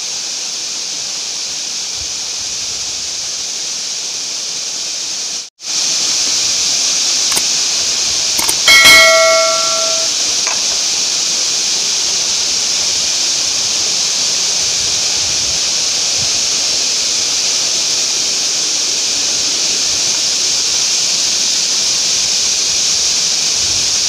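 Steady rushing roar of a tall waterfall, louder after a short break about five seconds in. About nine seconds in a brief bell-like chime rings out over it.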